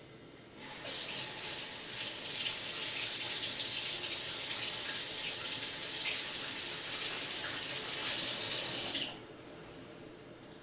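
Kitchen faucet running into the sink for about eight seconds, then shut off sharply about nine seconds in.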